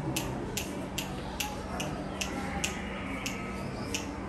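Sharp, short ticks about two a second, slightly uneven in spacing, over a steady low hum.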